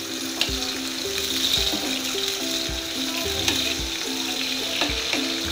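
Sliced onions sizzling as they fry in hot oil in an aluminium pan, stirred with a wooden spoon, over background music with a steady beat.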